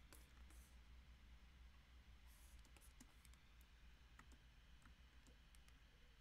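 Near silence: faint, scattered clicks of a plastic stylus tapping and stroking on a pen display's screen, over a low steady hum.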